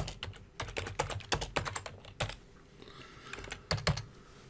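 Computer keyboard typing: a quick run of keystrokes for about two seconds, then a few scattered clicks, with two louder clicks near the end.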